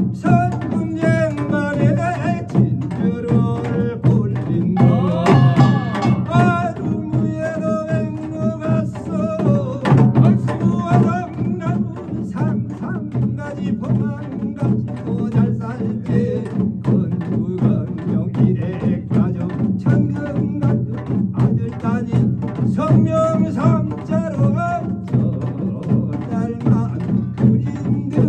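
Binari, a Korean ritual blessing chant: a male lead singer sings in a chanted melody over a steady, driving pungmul beat from buk barrel drums and janggu hourglass drum.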